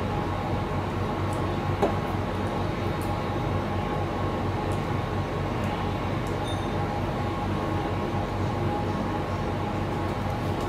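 A steady mechanical hum with a few steady tones, unchanging throughout, and one faint click about two seconds in.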